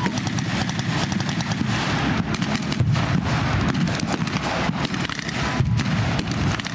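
Blank gunfire in rapid, irregular volleys, many shots a second from several guns at once, over a steady low rumble.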